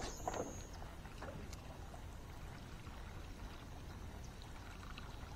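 Quiet water around a small fishing boat: faint lapping, a few light clicks of tackle handling, and a brief high thin whistle near the start.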